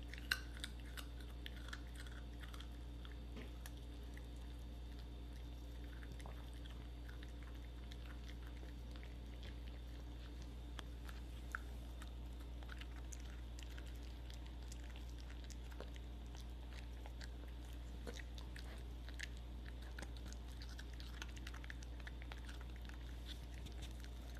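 A puppy chewing a small piece of food: soft, irregular crunches and little clicks of its teeth, over a low steady hum.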